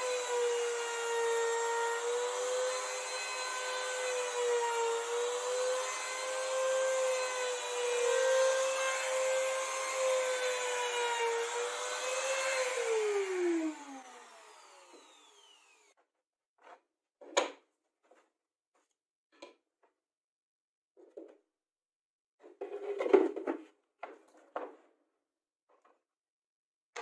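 Compact trim router running at high speed as it is pushed across a log slab to flatten it, a steady high whine that wavers slightly with the load. About 13 seconds in it is switched off and spins down in falling pitch, followed by a few separate short knocks of wood being handled.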